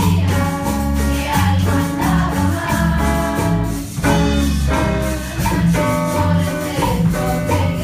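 Students performing a Latin pop song live: singing into microphones over melodicas, electric bass and hand percussion, with a steady beat.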